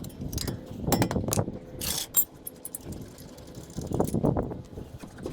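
Rapid ratcheting, metallic clicking from a tool undoing the bolts that hold a brake caliper mount, in two spells about one second and four seconds in, with a short rattle near two seconds.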